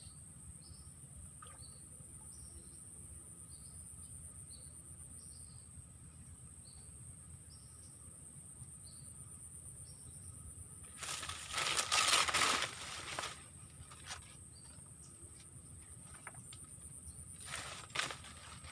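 Insects buzzing steadily at a high pitch in a rural, wooded setting, with a short chirp repeating about once a second through the first half. About eleven seconds in, a loud rustling burst lasts about two seconds, and a shorter one comes near the end.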